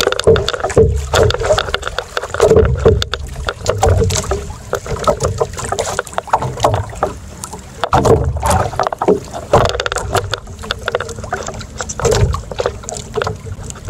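Choppy sea water slapping and splashing against the hull and outrigger of a small boat in irregular bursts, with wind buffeting the microphone.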